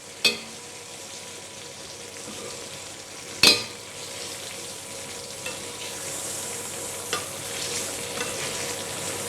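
Chicken and curry sauce sizzling in a pot, a steady hiss that slowly grows louder as browned chicken pieces go into the sauce. A sharp utensil knock on the pot comes about three and a half seconds in, with a few lighter clicks around it.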